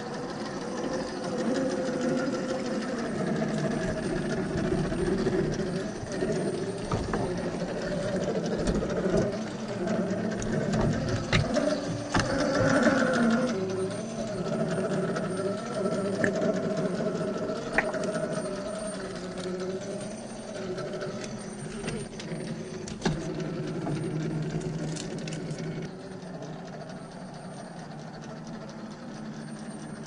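Axial SCX10 III RC rock crawler's 2300kv brushless motor and geared drivetrain whining as it creeps over rock. The pitch rises and falls with the throttle, with a few sharp knocks as the tyres and chassis meet stone.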